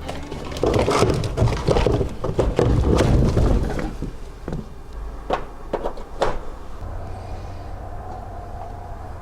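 Irregular handling clatter and a few sharp knocks, followed from about seven seconds in by a steady machine hum with a faint steady tone.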